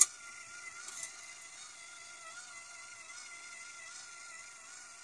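Filawinder's small electric spool motor running, a steady whine with a slight waver in pitch as it turns the filament spool. A sharp click comes right at the start, and a fainter one about a second in.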